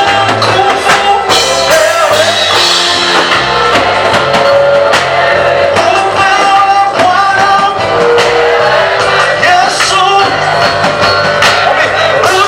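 Live praise and worship music: a group of singers leading a praise song over band accompaniment with a steady beat.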